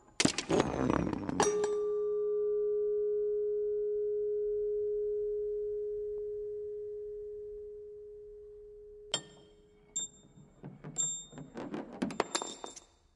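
Metal car parts clattering and rolling on a wooden floor, then a struck metal part rings with one steady tone that fades slowly over about seven seconds before being cut off. Small metallic clicks and short high pings follow as the parts move on.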